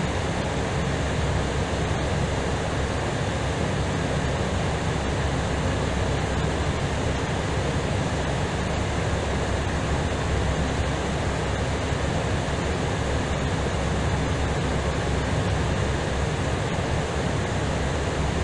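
Steady rushing noise of airflow and engines heard from inside an Airbus A320ceo in flight on approach.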